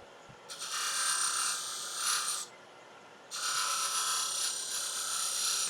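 Spear-point scraper cutting two grooves into a spinning laburnum spindle on a wood lathe, the grooves for wire-burned lines: two scraping bursts of about two seconds each, the second starting about three seconds in.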